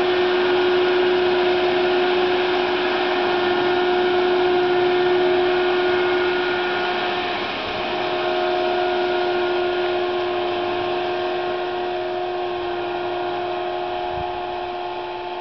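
John Deere self-propelled crop sprayer driving past while spraying: its engine runs with a steady drone and hum. The pitch drops slightly about halfway through as it passes, and the sound eases off as it moves away.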